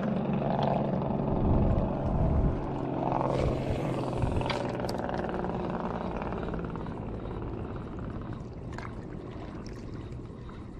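Low, steady engine hum that fades away over several seconds, with a few light clicks on top.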